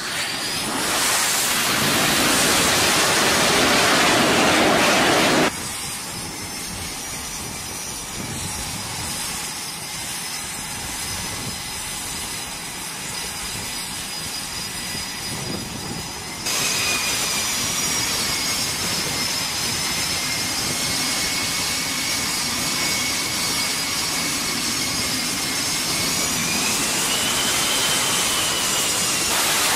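F/A-18 Super Hornet jet engines on a carrier flight deck: loud jet noise as one comes in to land, cutting off abruptly about five seconds in to quieter engine noise. After another sudden change about sixteen seconds in, a taxiing jet's engines run steadily with a high whine that rises in pitch near the end.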